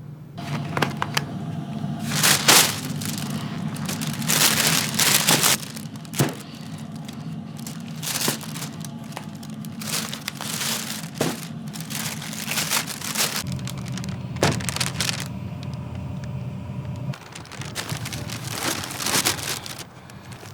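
Kitchen handling noises: crinkling and rustling strokes with a few sharp clicks, over a steady low hum.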